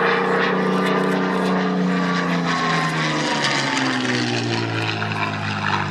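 Hispano Buchón's Rolls-Royce Merlin V12 engine running as the fighter flies past, its note dropping in pitch about three to five seconds in as it goes by.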